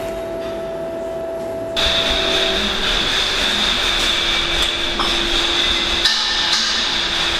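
Steady workshop machine noise: a low hum, then about two seconds in a louder machine with a steady high whine switches on and keeps running. A couple of light clicks come over it.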